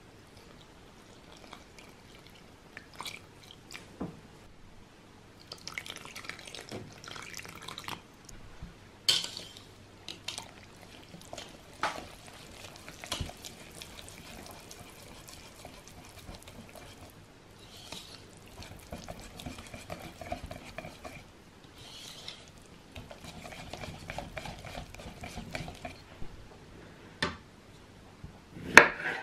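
Water poured from a measuring cup into flour in a ceramic bowl, then the wet batter stirred, with irregular scraping and knocks against the bowl. Near the end comes one sharp chop of a chef's knife on a wooden cutting board.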